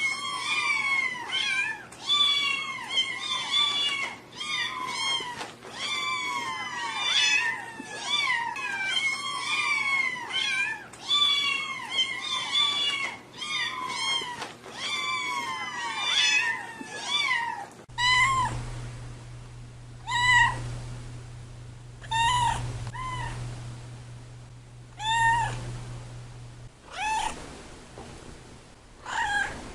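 Cat meowing over and over: a quick, overlapping run of high meows for more than half the time, then a different stretch of slower, spaced meows over a low hum.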